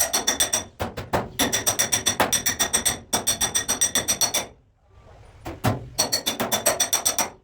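Rapid hand-hammer taps on car-body sheet metal, about nine a second, each strike leaving a bright metallic ring. The runs of taps are broken by short pauses, with a near-silent gap of about a second a little past the middle.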